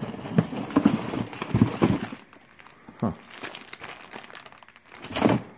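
Paper and cardboard rustling and crinkling as hands dig through a cardboard box of papers, busiest in the first two seconds and then quieter, with a single knock about three seconds in.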